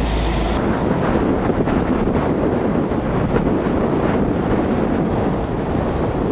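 Steady rush of passing highway traffic, tyre and engine noise from cars going by close to the microphone, with wind buffeting the microphone.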